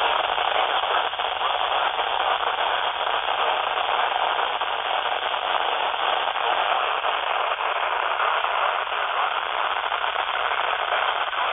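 Weather radio receiver playing steady static hiss, with no voice coming through.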